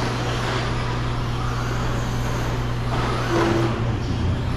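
Electric Traxxas Slash short-course RC trucks running on an indoor dirt track, a steady rushing noise of motors and tyres, over a low steady hum.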